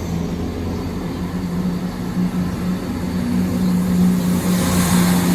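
Diesel engines of a Chiltern Railways class 168 multiple unit idling at the platform: a steady low hum that grows a little louder toward the end.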